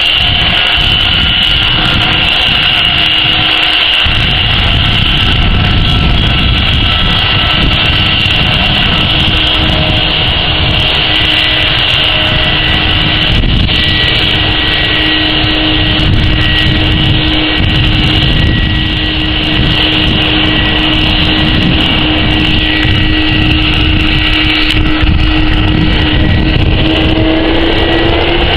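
Airbus A330-300's twin turbofan engines running at taxi power, a steady whine over a low rumble. Near the end the whine starts to rise in pitch as the engines begin to spool up for take-off.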